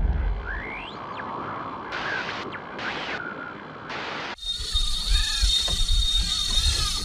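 A deep boom fades out under a rising whoosh and a few short swishes. About four seconds in it cuts abruptly to a steady hiss of wind and sea with a thin high whine and rhythmic squeaking from the kayak's pedal drive, over low irregular thumps.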